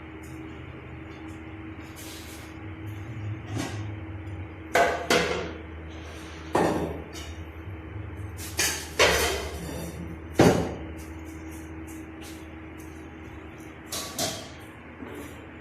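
Kitchen utensils knocking and clattering, about eight sharp knocks in the middle of the stretch, over a steady low hum.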